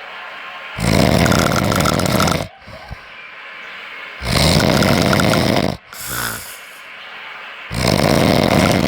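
A person snoring very loudly: three long, harsh snores about three and a half seconds apart, with much quieter breathing sounds between them.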